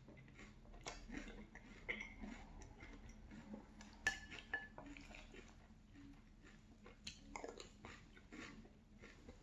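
Spoon clinking against a cereal bowl between mouthfuls of crunchy Boo Berry cereal being chewed, with many small clicks and crunches. The loudest clink comes about four seconds in and rings briefly.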